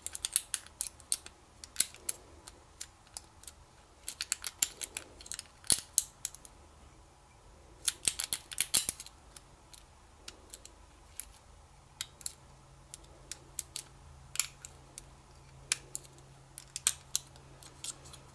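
Metal lock pick clicking and scraping against the pin stacks of an American Lock 5200 padlock during single pin picking, with tension on the core. Irregular sharp little clicks, some bunched into quick flurries about four and eight seconds in.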